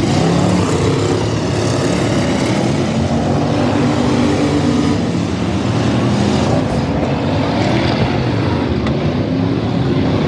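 Engines of several dirt-track stock cars racing, loud and continuous, with several engine notes overlapping.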